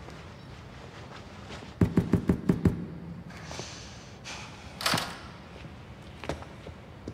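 Quick knocking on a door, about six knocks in under a second, followed a few seconds later by a brief rustle and a single click.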